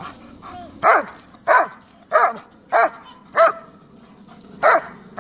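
German shepherd dog barking steadily at a helper holding a protection sleeve, the hold-and-bark guarding exercise of Schutzhund protection work: six barks at an even pace of nearly two a second, with a slightly longer gap before the last.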